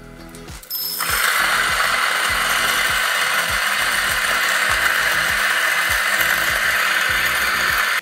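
Lagom P64 electric coffee grinder grinding a dose of espresso beans. The motor starts about a second in, runs with a steady, loud, gritty whir, and cuts off at the end.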